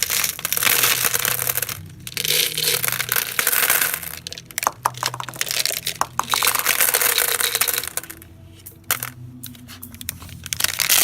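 Plastic surprise container of candy and gumballs being handled and dug into: rattling, clattering and crinkling in several stretches, with a run of sharp clicks about halfway through.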